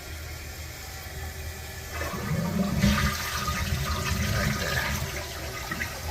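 Toilet flushing: after a low steady hum, water rushes loudly into the bowl starting abruptly about two seconds in and keeps running.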